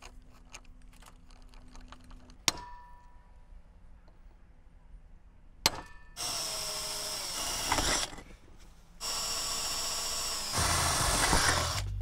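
Two sharp knocks on a metal fence post, each ringing briefly, then a cordless drill runs twice, drilling holes into the post; the second run grows louder near the end.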